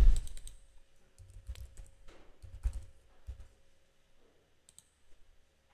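Typing on a computer keyboard: a short run of irregular keystrokes for about three seconds, then it stops.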